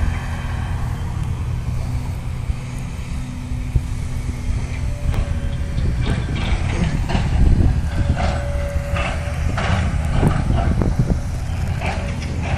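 Distant heavy earthmoving machinery, an excavator and a bulldozer, running with a steady low diesel engine rumble. From about halfway, short irregular higher-pitched sounds come in over it.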